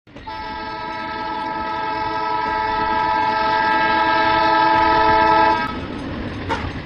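Train horn sounding one long, steady blast that grows louder as the train approaches, cutting off about five and a half seconds in and leaving a low rumbling noise.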